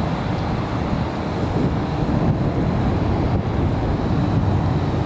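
Low, steady rumble of jet airliner engines, growing a little louder about a second and a half in.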